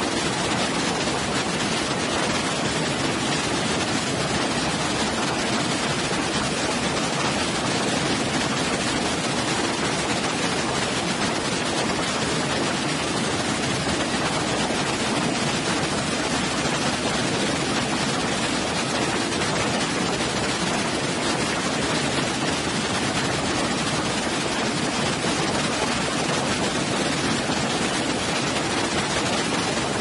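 Waterfall pouring into a pool: a steady, unbroken rush of falling water with no changes.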